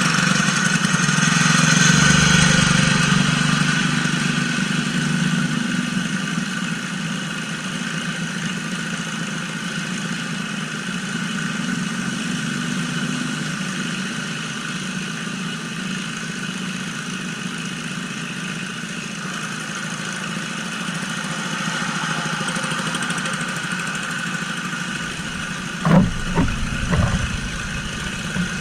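Mud mower's engine running steadily, a little louder about two seconds in. A few sharp knocks come near the end.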